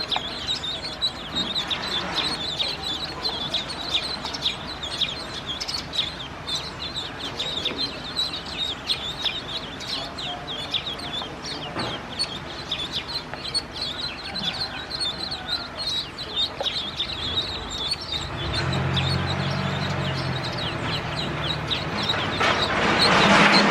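Ducklings peeping in a dense chorus of short, high-pitched peeps. A low, steady hum joins in for the last few seconds.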